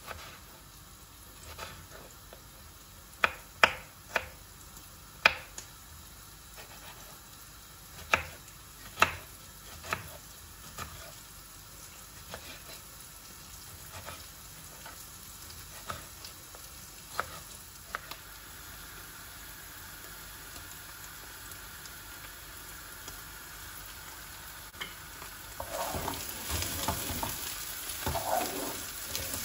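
Kitchen cooking sounds: scattered sharp knocks and clicks of utensils and cookware, then food sizzling in a pan as a steady hiss that builds from about two-thirds of the way through, with stirring and clatter near the end.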